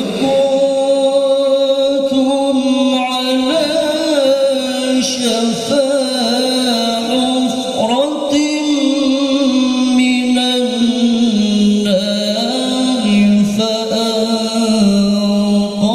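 A man reciting the Qur'an in melodic tilawah style into a handheld microphone, in a high voice: long held notes with bends and wavering turns in pitch, sung as one unbroken phrase.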